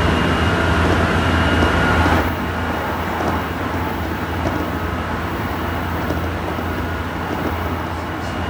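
Tsukuba Express TX-2000 series electric train running, heard inside the passenger car: a steady low rumble with a faint whine that stops about two seconds in, after which the running noise is a little quieter.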